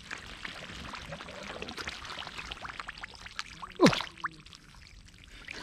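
Mud and shallow water splashing and sloshing as a fish thrashes in a puddle and a man grabs at it bare-handed. About four seconds in there is one loud, brief sound that falls sharply in pitch.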